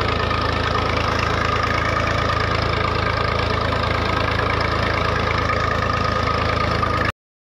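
Massey Ferguson 240 tractor's three-cylinder Perkins diesel engine running steadily while pulling a disc ridger through the soil. It cuts off suddenly near the end.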